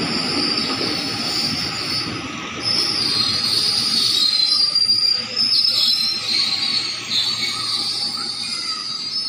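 Electric commuter train moving slowly through the station with a rumble, its steel wheels squealing on the rails. The squeal is high-pitched with several overlapping tones, and grows louder a little under three seconds in.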